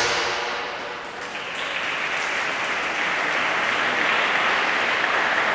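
Audience applause that picks up about a second in and carries on steadily, just after the program music fades out.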